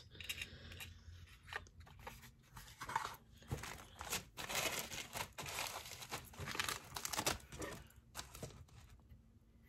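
Paper and plastic packaging rustling and crinkling as it is handled, in irregular bursts that are busiest in the middle.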